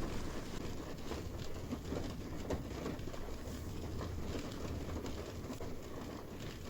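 Steady rain pattering on a car, separate drops ticking over a constant hiss.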